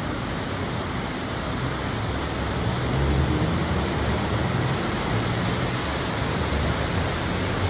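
Steady hiss of heavy rain and rushing floodwater, with a low rumble that swells and fades, loudest about three seconds in.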